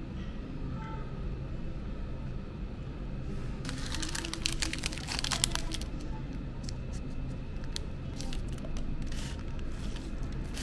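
Paper crinkling and rustling for about two seconds, starting a few seconds in, as a hash brown's paper sleeve and the sandwich wrapper are handled. A few light clicks follow, over a steady low background hum.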